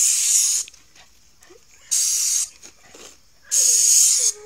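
Compressed air hissing from a hand-held nozzle on a portable tyre-inflating air tank, let out in three short blasts of well under a second each.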